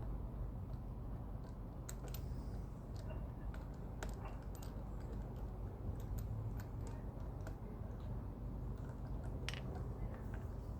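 Scattered light clicks and taps of new NGK spark plugs being handled, over a steady low hum.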